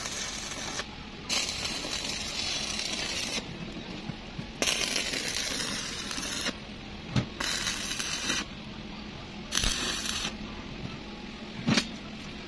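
Stick (arc) welding on steel rebar: repeated crackling, sizzling bursts from the arc, about five welds of one to two seconds each with short pauses between. Two sharp metal knocks fall in the pauses, the second near the end.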